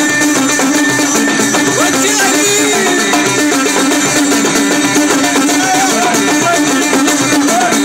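Live folk band music: a plucked string instrument playing over a steady beat of hand-played frame drums and other drums.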